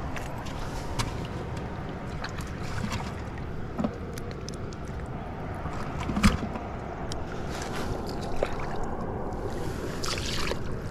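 Steady outdoor rumble with scattered small clicks and knocks, a sharper knock about six seconds in and a short hiss near the end.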